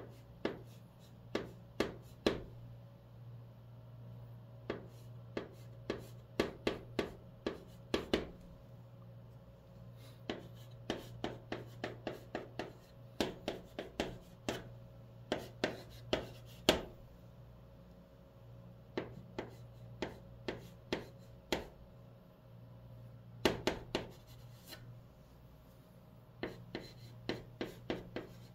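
White chalk writing on a green chalkboard: sharp taps and short scrapes in quick clusters as each stroke goes down, with brief pauses between characters.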